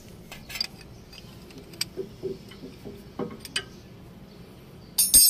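Light clicks and ticks of a 14 mm wrench working a bolt on a brake caliper, then a loud, ringing metallic clink near the end.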